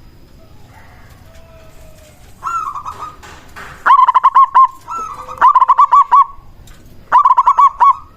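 Zebra dove (perkutut) singing its cooing song: quick rippling notes in short phrases, a softer one followed by three loud bursts.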